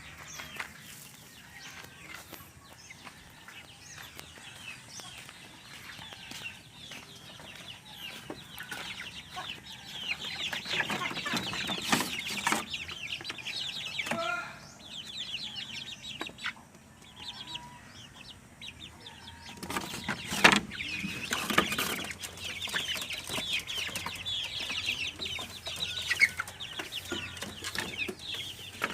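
Free-range chickens clucking, with a dense high chatter of calls that swells twice. A few sharp knocks stand out, the loudest about two-thirds of the way through.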